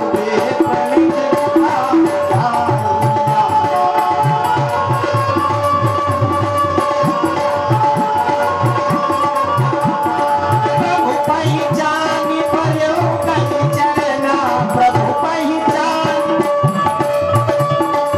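Devotional music interlude: tabla playing a steady repeating rhythm under long held melody notes.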